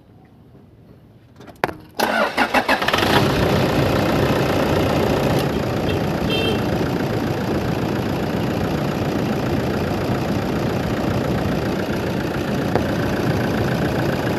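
Toyota Fortuner engine being started: a click about 1.7 s in, a short burst of cranking, then the engine catches and idles steadily.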